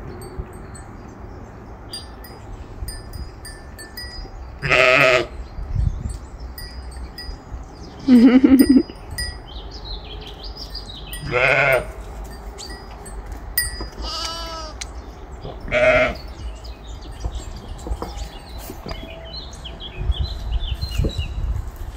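Sheep and goats of a mixed flock bleating: five quavering calls of about half a second each, a few seconds apart, the second lower-pitched and the loudest. Birds chirp faintly throughout.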